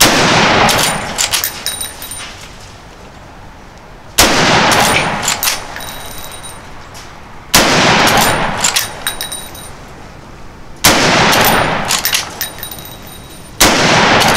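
Five shots from a Henry Side Gate lever-action rifle in 45-70 Government, three to four seconds apart. Each shot is followed by a run of metallic clicks as the lever is worked to eject the spent case and chamber the next round.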